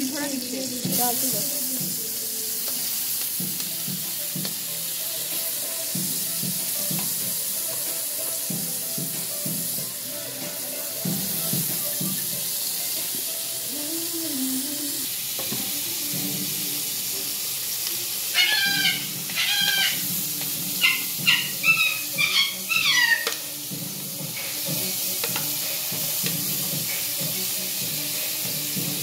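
Potatoes and vegetables frying in hot oil in a frying pan: a steady sizzle, with the clatter of pieces being added and stirred. About two-thirds of the way through comes a short run of loud, high chirping calls.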